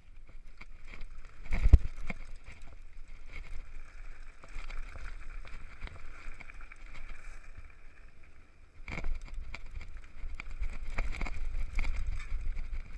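Downhill mountain bike rolling over gravel and grass, heard from its handlebars: tyre noise with frequent rattling clicks and knocks from the bike, one heavy thump about two seconds in. A low rumble grows louder from about nine seconds as the bike picks up speed on the descent.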